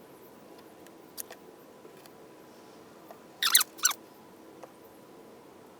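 Brief high squeaks, two short ones about three and a half seconds in, with a few faint clicks: a clamp and plastic dash parts being handled as a glued-in piece is clamped up.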